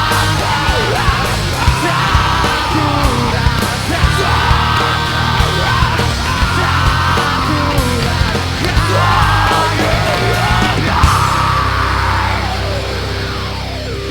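Rock band playing loud, heavy rock with a shouted, strained lead vocal over drums and distorted guitar. The vocal stops about twelve seconds in and the music gets quieter.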